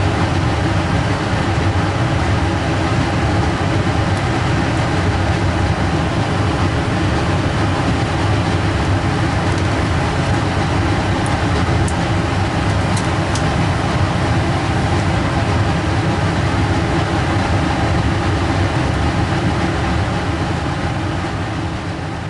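Biosafety cabinet's blower fan running: a steady airflow rush with a constant hum. A few faint light clicks come around the middle.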